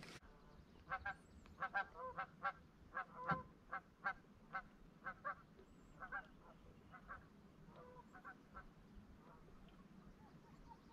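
Waterfowl calling faintly: a quick run of short, repeated calls that starts about a second in and thins out after about five seconds.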